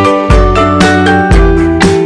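Background music with a steady beat and pitched instrumental notes.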